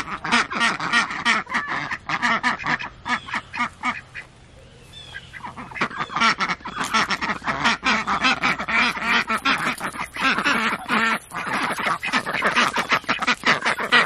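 Several ducks quacking loudly and continuously, a busy run of short quacks several a second, easing off briefly about four seconds in before picking up again.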